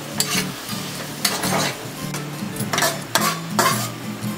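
A metal spatula stirring and scraping around a wok in a series of irregular strokes, while octopus pieces sizzle in a sugary marinade that is cooking down.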